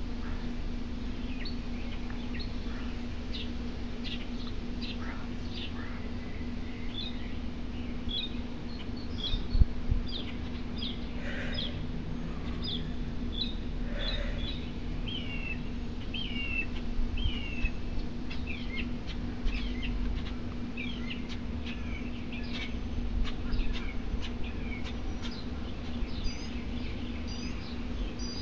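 Small birds chirping: many short high notes, some sweeping down in pitch, over a steady low hum and outdoor rumble. A single brief knock about ten seconds in.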